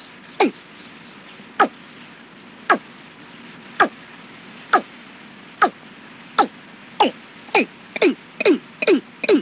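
Recorded watercock (cúm núm) calls: a series of short, falling notes, at first about one a second and quickening to two or three a second near the end, over a steady hiss.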